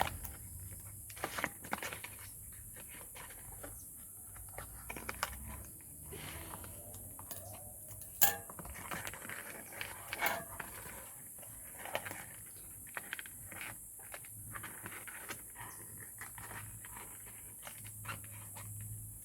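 Toy packaging being torn and pried apart by hand: scattered plastic and cardboard rustles, clicks and snaps, with a sharp snap about eight seconds in and another about ten seconds in.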